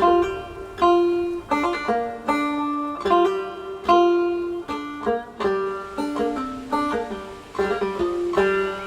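Background music: a banjo-led bluegrass-style tune of plucked notes, each sharp at the start and fading.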